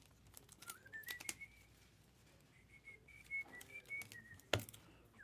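Soft human whistling: a single thin note that slides up about a second in and holds, wavering slightly, until about four seconds in. Light clicks and taps of trading cards being handled, with a sharper tap about four and a half seconds in.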